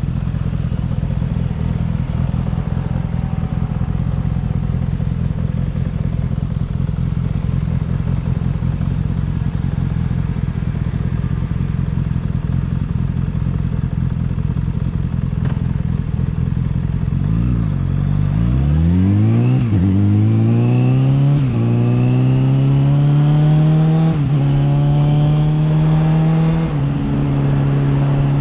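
Motorcycle engine idling steadily, then accelerating through the gears a little past halfway: the engine note rises and drops back at each of several upshifts, and settles into a steady cruise near the end.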